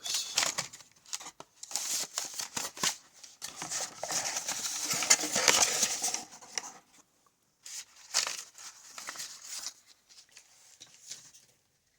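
Lock pick set packaging being handled and opened: crinkling, tearing and rustling with scattered clicks, busiest from about three and a half to seven seconds in, then a few light handling clicks.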